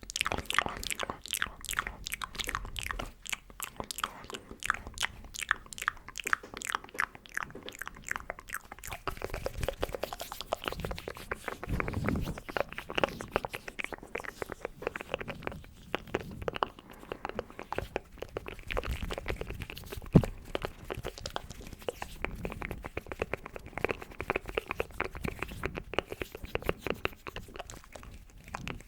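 Close-miked ASMR mouth and hand sounds: a fast run of wet mouth clicks and smacks for the first nine seconds, then slower clicks mixed with soft rubbing, with one sharp click standing out about twenty seconds in.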